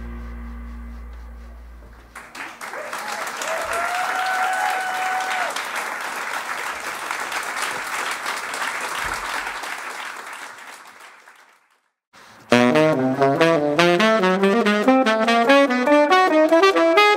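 A jazz quartet's closing chord rings and dies away, then the audience applauds for several seconds, with a brief held cheer in it, and the applause fades out. After a short gap, a tenor saxophone starts a fast run of notes that slowly climbs, and drums come in near the end.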